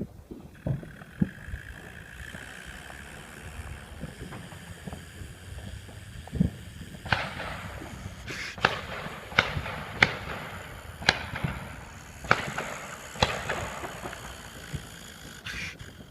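Fireworks going off: scattered dull thuds at first, then, about seven seconds in, a run of sharp cracks roughly one a second, each trailed by a hiss.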